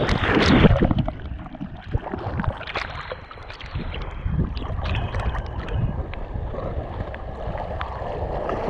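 Water splashing right at a collar-mounted camera as a cattle dog–ridgeback cross bounds into the shallows and swims. A loud burst of splashing comes in the first second, then quieter sloshing and lapping, and the splashing picks up again near the end as it wades.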